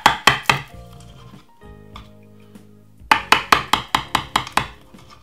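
Knife chopping down through baked lasagne and tapping the bottom of a ceramic baking dish: a quick run of sharp taps at the start and another run of about eight from about three seconds in. Soft background music plays between them.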